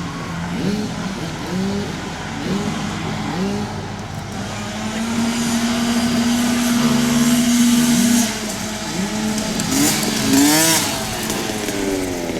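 Flat track racing motorcycles running around the dirt oval, their engines rising in pitch again and again as they accelerate through the gears. One engine holds a steady note for a few seconds in the middle, and a louder bike revs up sharply near the end.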